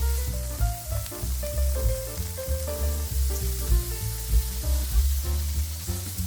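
Food frying in oil in a pan, a steady sizzling hiss, with background music carrying a pulsing bass line and a melody over it.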